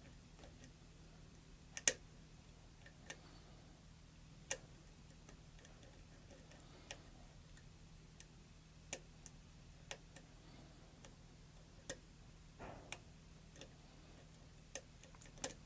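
Faint, irregular clicks of a thin lock pick working the pins of a Schlag pin-tumbler lock, one every second or so, with one sharper click about two seconds in. The pins are sticking and will barely move.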